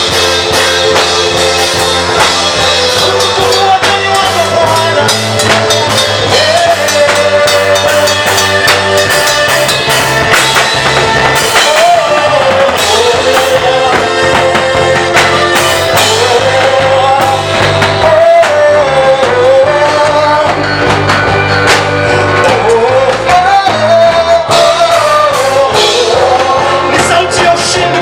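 Live church praise music: a voice singing a melody over a band with a steady bass line and drums.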